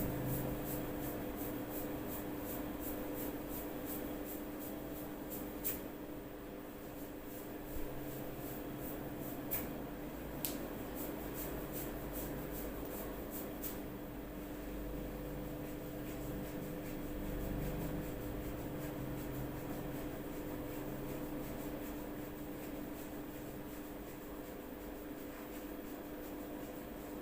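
Hands rubbing and pressing over skin during a massage, under a steady hum, with four short sharp clicks between about six and ten and a half seconds in.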